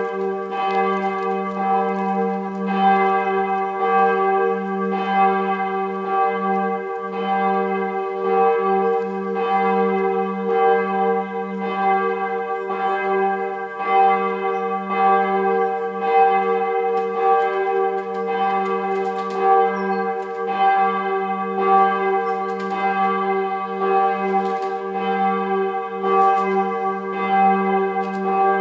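Bell III of the Wiesenkirche in Soest, a church bell cast in 2002, swinging and ringing on its own, its clapper striking about once a second over a continuous hum. It is ringing as the call to worship half an hour before a service.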